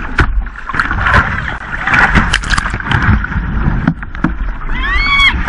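Whitewater rushing and splashing around a tandem whitewater kayak running a rapid, with sharp paddle and wave splashes. Near the end a paddler lets out a short high-pitched whoop that rises and falls.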